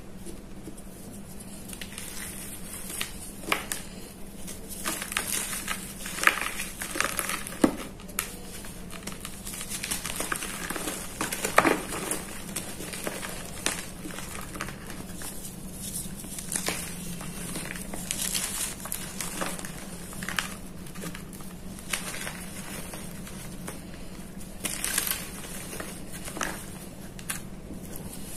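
Hands crushing and crumbling soft reformed gym chalk blocks made with school chalk, giving irregular crunches and crackles as pieces break and powder packs under the fingers. A faint steady low hum sits underneath.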